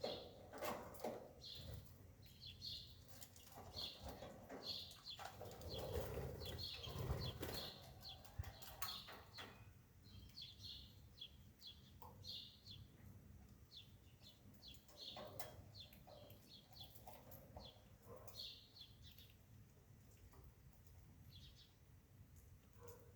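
Faint bird chirps, short and repeated many times, with a few clicks and a low rumble about a quarter of the way in.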